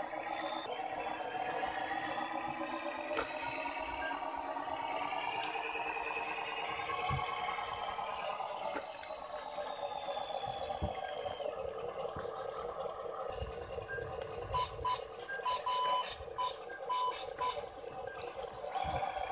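Scale RC Hino 700 dump truck's motor and gearbox whining, the pitch rising and falling as it pushes through mud and climbs a bank under a load of rocks. Near the end come a series of short, high beeps.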